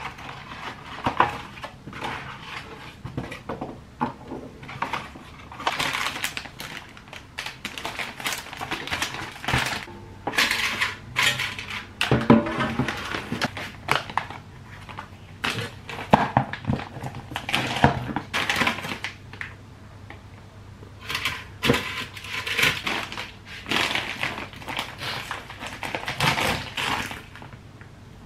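Kitchen handling sounds: plastic food packaging rustling and crinkling, a plastic egg carton being handled, and light knocks and clicks as frozen food and chicken skewers go into an air fryer basket. The sounds come irregularly, with short pauses between.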